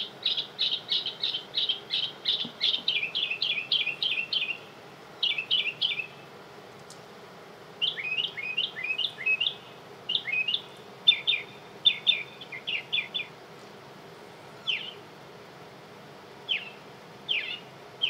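Bird calls played back from a recording: a rapid series of short chirps, about four or five a second, then shorter clusters and a few single chirps near the end.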